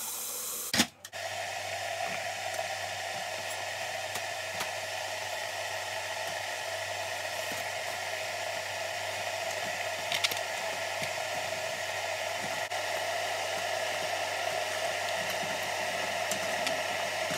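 Tap water running into an electric kettle for the first second. After a brief break, a steady rushing hiss with a low hum takes over: the electric kettle heating. A few light plastic clicks come near the middle.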